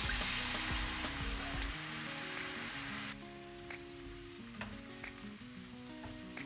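Water hitting hot oil in a non-stick wok with baby corn and garlic, hissing and sizzling loudly; after about three seconds the hiss drops to a quieter frying sizzle as a silicone spatula stirs, with a few light taps.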